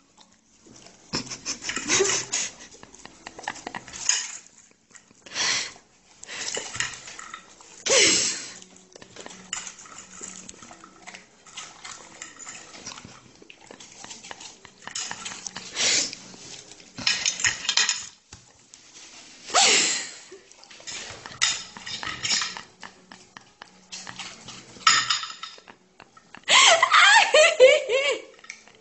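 A metal fork clinking and scraping against a ceramic plate in scattered knocks and clatters. Near the end a person's voice comes in, louder than the clinking.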